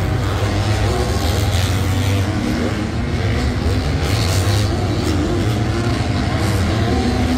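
250cc four-stroke supercross motorcycles riding the track, their engines revving up and down in a continuous, wavering drone.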